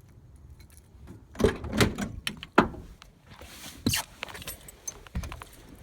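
Keys jangling among a string of knocks and clunks, the loudest a little over a second in and again around two and a half seconds. A brief hiss follows. No engine cranking or running is heard.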